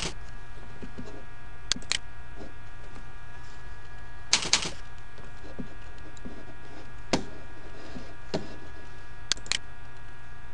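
Scattered clicks of computer keyboard keys and a mouse button, about nine in all, some in quick pairs, over a steady low hum.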